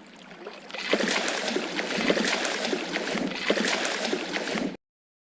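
Fish splashing in water: quiet at first, then a busy run of many small splashes and slaps that stops abruptly near the end.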